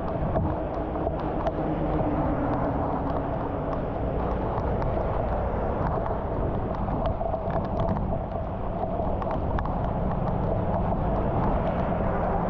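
Steady rain and muddy storm water running into a clogged street drain, with scattered sharp drip ticks close by.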